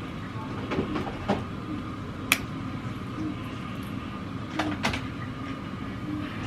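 A steady mechanical hum with a faint high whine, broken by a handful of sharp clicks and knocks, two of them close together about a second in, one louder about two seconds in, and two more a little before five seconds.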